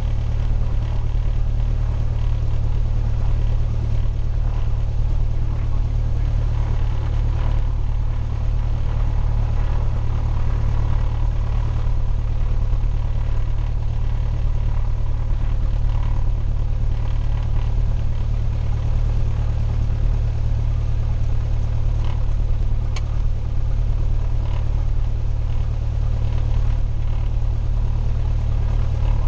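Cessna 172's piston engine and propeller running steadily at low power, a constant low drone heard from inside the cockpit.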